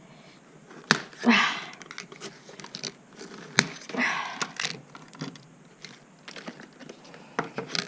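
Scissors cutting open plastic packaging: sharp snips and clicks, with short stretches of crinkling rustle as the packet is handled.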